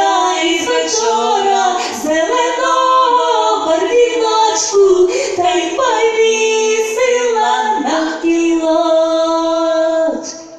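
Two girls singing a Ukrainian spring folk song (vesnianka) unaccompanied into microphones, with long held notes; the singing stops near the end.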